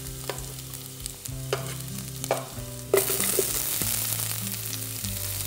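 Sliced garlic frying in lard in a stainless steel pot, with a spoon clicking and scraping against the pot. About three seconds in, sliced onion goes into the hot fat and the sizzle suddenly grows louder and hissier.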